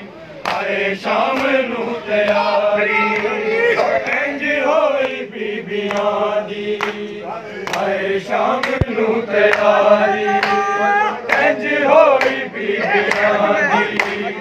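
A crowd of men chanting a noha, a Shia mourning lament, together, over regular sharp slaps of open-handed chest-beating (matam).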